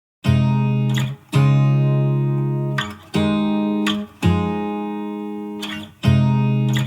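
Background music: a guitar playing a slow intro of about five strummed chords, each struck and left to ring out before the next, starting after a short silence.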